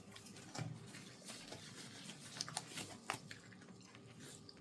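Faint crinkling and a few small sharp clicks of thin disposable plastic gloves being pulled on and handled.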